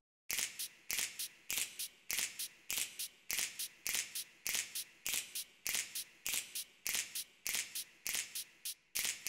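Outro music made of crisp, high percussion strokes in a steady rhythm, a strong stroke followed by a lighter one, a little under two pairs a second.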